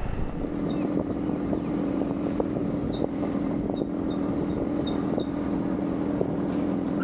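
BMW F800 motorcycle's parallel-twin engine running at a steady speed, with a constant hum and the rush of riding.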